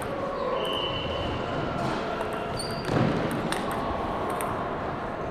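Table tennis rally: the ball clicks sharply off the paddles and table, with a few short high squeaks and a heavier thud about three seconds in.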